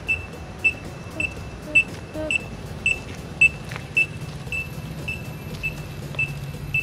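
Pedestrian crossing signal beeping while the walk light is green: short, high, single-pitch beeps repeating evenly about twice a second, over a low hum of traffic.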